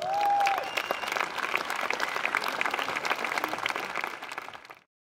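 Crowd applauding, the dense clatter of many hands clapping, with one voice cheering at the very start. The applause fades out near the end.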